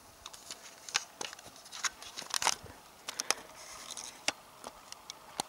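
Irregular sharp crunches and clicks at close range, about a dozen of them and loudest near the middle, over a faint steady hiss.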